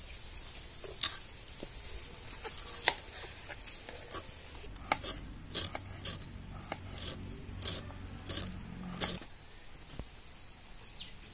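Cabbage being sliced on a traditional curved floor blade (aruvamanai), with crisp cuts about a dozen times at uneven intervals. The cutting stops a little after nine seconds in.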